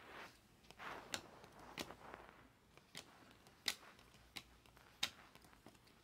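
Glossy chrome trading cards being slid off a hand-held stack one at a time. Each card gives a faint click, about one every two-thirds of a second, with soft rustling between.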